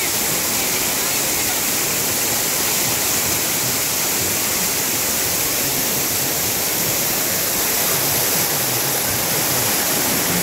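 Steady hiss of splash pad water jets spraying and splashing, even and unbroken.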